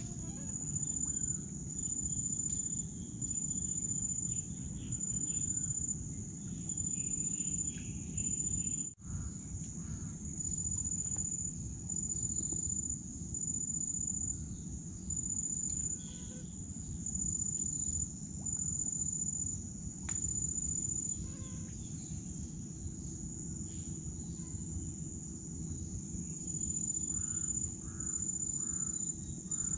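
Insects trilling: a high, steady trill that comes and goes in stretches of a second or two, over a low, steady rumble. The sound briefly drops out about nine seconds in.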